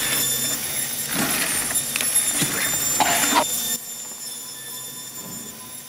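A machine running with a steady high whine under strained, groaning sounds, which cut off sharply about two-thirds of the way through, leaving a quieter steady hum of the processing hall.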